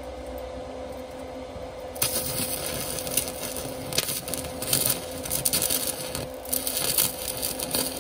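Stick welding with a small 120 A inverter arc welder: about two seconds in the arc is struck and crackles and sputters irregularly, over a steady hum.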